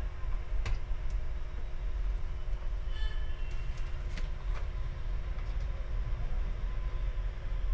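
Steady low rumble of workshop background noise with a faint steady hum, broken by a few light clicks and taps of handling on the bench.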